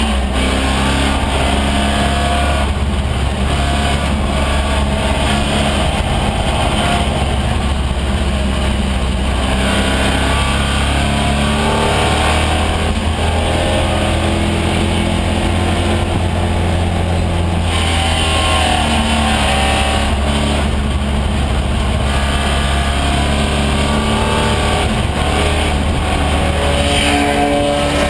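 AMC Javelin AMX race car's engine running hard, heard from inside the cockpit. Its pitch climbs under acceleration and falls back several times as the driver shifts and brakes.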